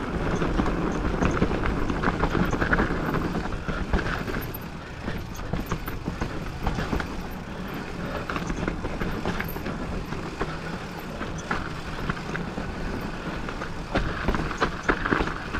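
Mountain bike ridden down a dirt trail: a steady rush of tyre and wind noise with frequent rattles and knocks from the bike over rough ground, busier about fourteen seconds in.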